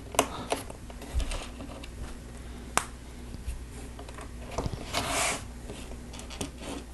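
Small plastic Lego pieces being handled and pressed onto studs: a handful of separate sharp clicks, the loudest a little under three seconds in, with a short rustle of handling about five seconds in.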